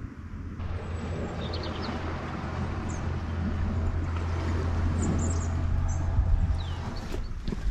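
Outdoor ambience: a steady low rumble with a few brief, high bird chirps scattered through it.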